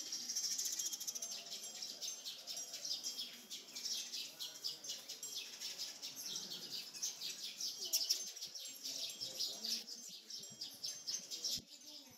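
A flock of small birds chirping, a dense, continuous chatter of quick high-pitched chirps.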